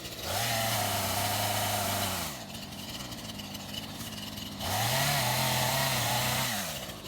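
Husqvarna chainsaw revved up twice, each time for about two seconds, its pitch rising and then falling away, dropping back to idle in between.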